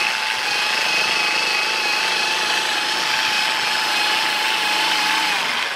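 Dual-action polisher running at speed, its yellow foam pad spinning against a microfiber towel held to it to wipe spent polish off the pad. The motor gives a steady whine that drops away near the end.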